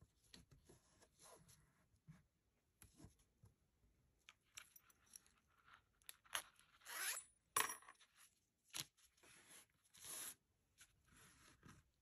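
Hands handling and pressing vinyl mesh fabric and a nylon zipper on a cutting mat: faint rustling and light clicks, with a few louder, brief scratchy sounds between about six and ten seconds in.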